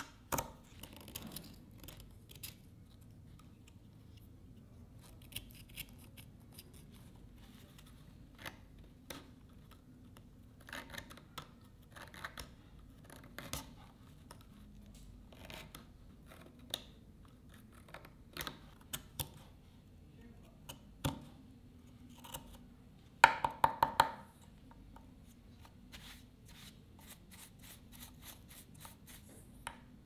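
Small metal hand tool scraping and picking at the wooden handle of an old folding pocket knife: scattered faint scrapes and ticks, with a quick run of louder clicks about three-quarters of the way through.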